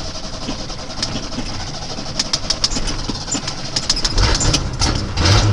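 Carbureted Ford pickup engine cranking over on the starter in a cold start with the choke closed, then catching near the end and beginning to run.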